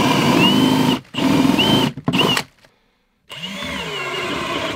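Cordless drill with a spade bit boring holes through a wooden floor joist, running in stop-start bursts: it pauses about a second in and again near two seconds, goes quiet briefly in the middle, then runs more quietly with its pitch sliding down and back up before stopping near the end.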